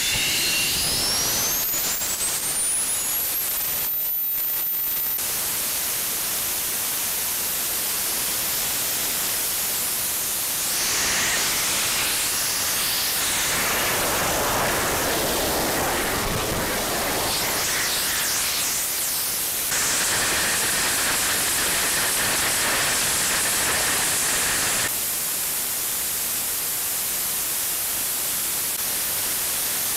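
Homemade jet engine with a stainless-steel de Laval nozzle running at full thrust: a loud, steady rush of jet exhaust noise. A thin whine rises steeply in pitch over the first few seconds and then holds high.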